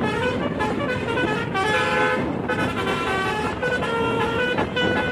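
Tunggal Jaya bus's telolet horn playing a tune of quickly changing notes, over a low rumble.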